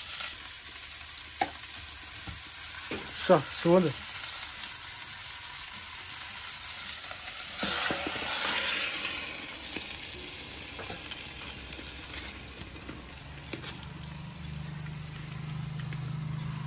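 Fish pieces frying in a clay pot over a wood fire, sizzling steadily, with a few knocks and scrapes of a spoon against the pot about three seconds in. About eight seconds in, liquid is poured into the hot pot and the sizzle surges briefly.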